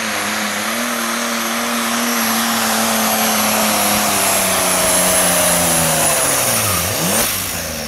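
Ford 9600 pulling tractor's turbocharged diesel engine running flat out under load down the track, with a high whistle over it. Near the end the engine note drops sharply and dips twice.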